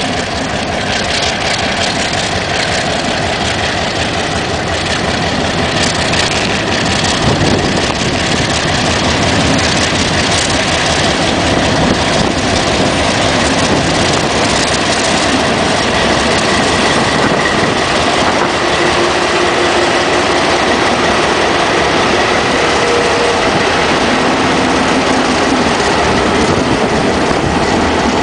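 ALCO FPD9 diesel locomotive pulling a freight train away and passing close by, its engine working. Hopper wagons follow, rolling past with their wheels clattering over the rail joints.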